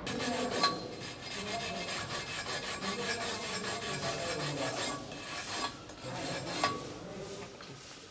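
MIG welding arc crackling steadily, a dense rapid sizzle, with a sharp pop about half a second in and another near the seventh second, trailing off near the end.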